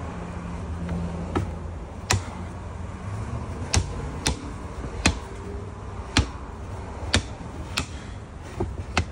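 An MDF subwoofer enclosure being handled on a workbench: about nine sharp wooden taps and knocks at uneven intervals, over a low steady hum.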